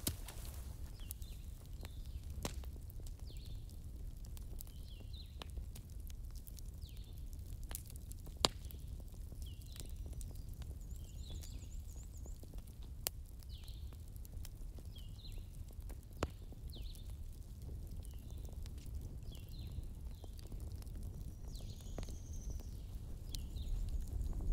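Bush ambience under grazing zebras: small birds chirp about once a second, with a brief high trill about halfway and a falling whistle near the end. Occasional sharp snaps and rustles come from the zebras cropping grass and shifting their hooves, over a low steady rumble.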